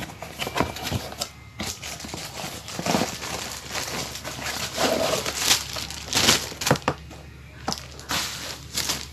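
A cardboard product box and its packing being handled and opened: irregular rustles, scrapes and knocks.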